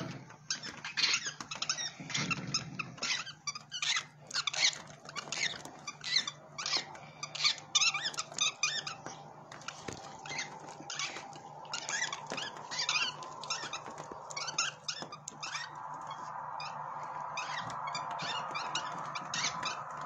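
Baby birds cheeping while begging for food: many short, high-pitched calls in quick succession.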